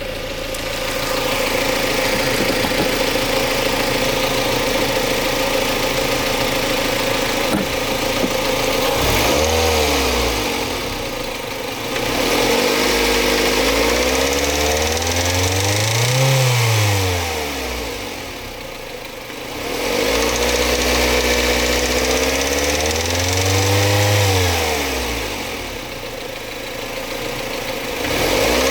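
Mazda MX-5 Mk3's four-cylinder engine idling, then revved up and let fall back several times, each rise and fall taking a few seconds. It is making a rattle that the owner cannot yet diagnose.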